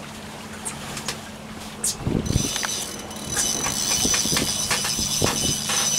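Fishing reel's drag whining steadily from about three seconds in as a hooked striped bass pulls line off against it. Under it runs the low steady hum of the boat's outboard motors, with a few knocks and a thump about two seconds in.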